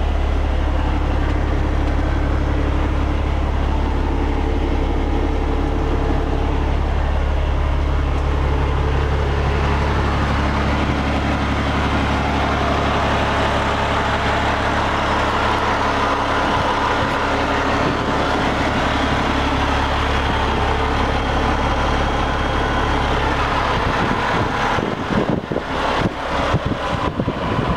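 Diesel engine of a Peterbilt 389 truck tractor idling steadily, heard from inside the cab. Near the end, a run of irregular knocks and rustles joins it.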